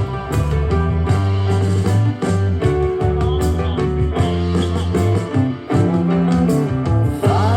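Blues-rock music with guitar, piano and drums, played back through a portable Bluetooth speaker for a sound test.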